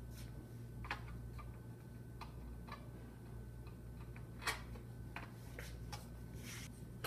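Scattered light clicks and taps of the aluminium and plastic parts of a retractable banner stand base being handled, the loudest about four and a half seconds in, over a steady low hum.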